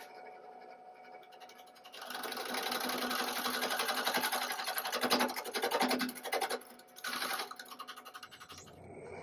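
Rapid, dense scratching and scraping on weathered, pulpy driftwood, starting about two seconds in, breaking off briefly near seven seconds, then a shorter burst that fades out.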